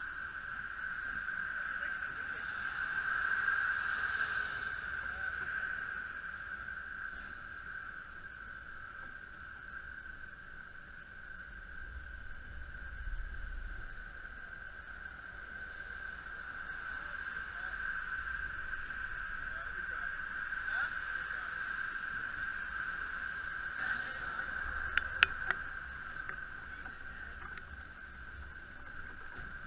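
Steady mechanical drone of an inflatable Meltdown ride's blower and arm-drive machinery running, slowly swelling and fading, with a few sharp clicks about 25 seconds in.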